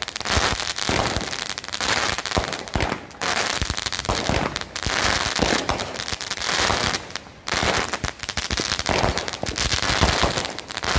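Consumer fireworks going off in a dense run of rapid crackling pops, with a few brief breaks.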